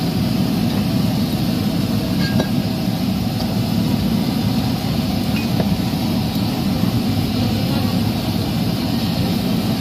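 Gas burner roaring steadily under a street-cart wok as noodles stir-fry and sizzle in it, with a couple of light clinks of the metal spatula.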